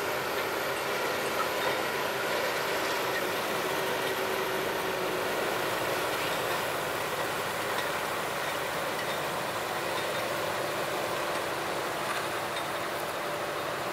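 Road-rail excavator with a rotating brush attachment sweeping snow from railway switches. Its engine and hydraulics run steadily under a broad rushing noise, with a faint steady hum that fades out about five seconds in.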